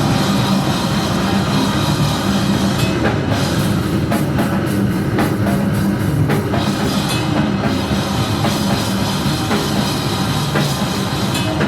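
Loud live rock music from a band with a full drum kit, sharp drum and cymbal hits coming thick in the middle stretch over a dense, unbroken wall of band sound.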